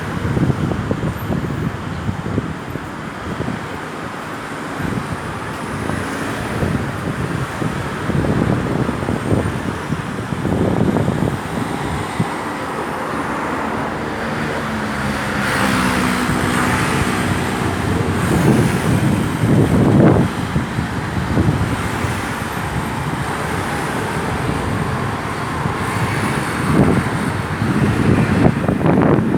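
Road traffic: motor vehicles driving past in a steady stream, with one vehicle's engine passing close and loud about halfway through.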